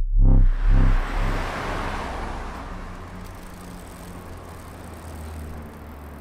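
Instrumental intro of a worship song: pulsing synthesizer notes stop about a second in, then a rushing noise swell rises and slowly fades over held low notes.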